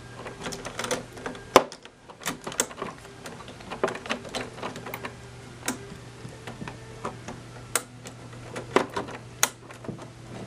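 Irregular plastic clicks and snaps of ink cartridges being pressed into the print head carriage of a Canon PIXMA MG5420 inkjet printer, the loudest about one and a half seconds in, over a faint steady low hum.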